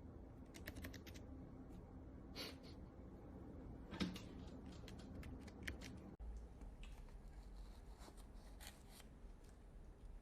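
Faint, irregular typing on a Keychron low-profile mechanical keyboard: scattered key clicks, with one louder clack about four seconds in.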